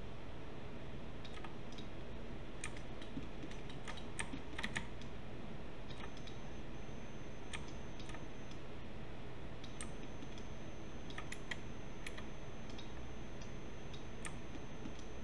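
Computer keyboard keys and mouse buttons clicking in small scattered clusters over a steady background hiss.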